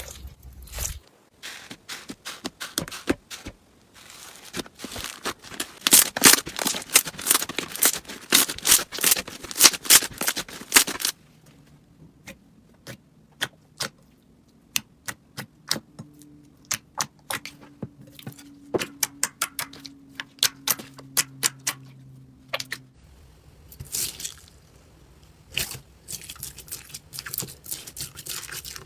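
Slime being worked by hand, giving a run of sharp crackling pops and clicks. They come thick and fast for the first ten seconds or so, then turn sparse and scattered, and build up again near the end.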